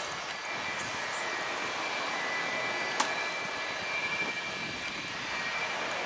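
Boeing 777 airliner on final approach, its jet engines a steady, distant noise. A single sharp click about three seconds in.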